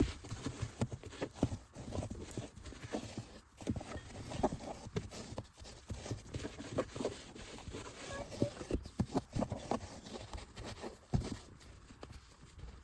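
A string of light, irregular taps and knocks, a few each second, as things are handled.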